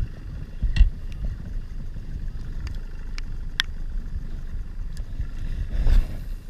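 Small skiff under way on open water: a steady low rumble, with a few sharp taps and a burst of clatter as the fishing rod is handled near the end.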